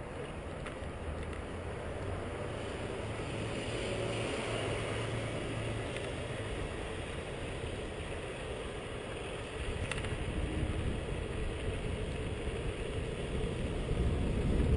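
Wind rush and road rumble from riding an electric bicycle, picked up by a helmet-mounted GoPro, getting gradually louder as the bike gathers speed.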